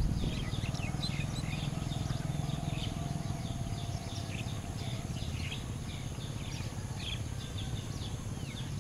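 Many small birds chirping in short, quick calls, over a low, steady background rumble.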